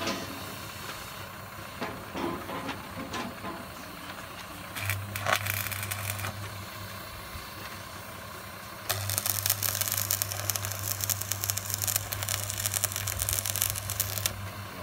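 Stick (arc) welding at a precast concrete beam joint: the arc strikes and crackles briefly about five seconds in, then from about nine seconds burns in a continuous crackling sizzle over a low hum, stopping just before the end.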